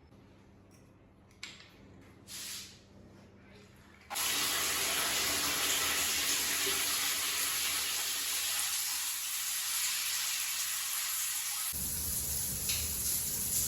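Steady rushing of running or falling water that starts suddenly about four seconds in, after a few seconds of faint, quiet sounds.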